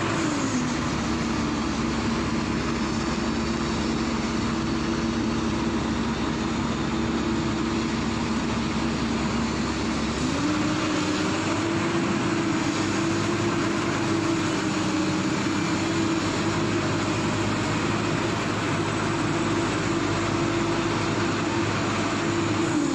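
Excavator's diesel engine running steadily, its speed dropping at the start and rising back about halfway through, then dropping again near the end.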